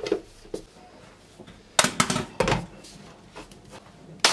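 Hard plastic clacks and knocks as the lid and motor unit of a stick blender's mini chopper are fitted onto a bowl of biscuits: a few separate knocks, with a cluster about two seconds in and a short one at the very end.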